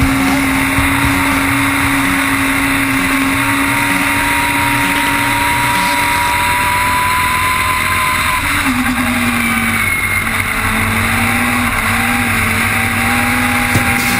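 Legend car's Yamaha four-cylinder motorcycle engine running hard at high revs, heard from inside the cockpit with road and wind noise. The note holds steady, then drops a little about eight and a half seconds in and settles again.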